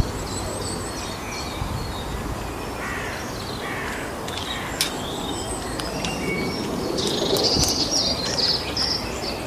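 Short high chirps and calls of wild creatures over a steady outdoor background, busier and a little louder from about seven seconds in.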